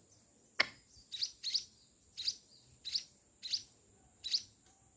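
Week-old munia chicks chirping: short, high, falling chirps repeating every half second to a second. There is a single sharp click about half a second in.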